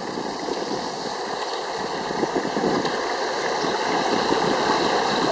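Steady outdoor rushing noise with no distinct events, slowly getting a little louder.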